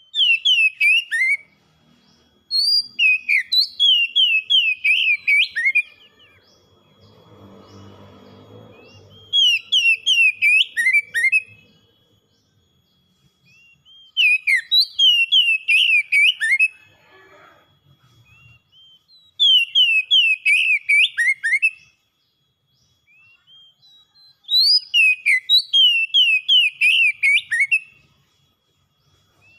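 Oriental magpie-robin in full song: six phrases of quick, repeated downward-slurred whistles, each a couple of seconds long with short pauses between. A faint steady high tone runs underneath.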